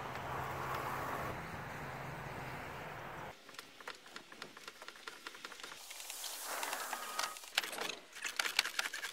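A steady low hum and hiss for about three seconds, then irregular knocks, scrapes and rustles as boards and sheet metal are handled around a small wooden chicken coop being shifted by hand.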